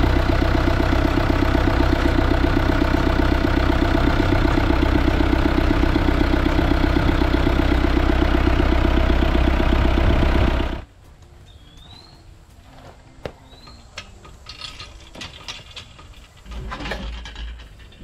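Tractor engine running steadily with an even pulsing drone, cutting off suddenly about eleven seconds in. Afterwards a few short bird chirps and light knocks of metal sawmill track sections being handled.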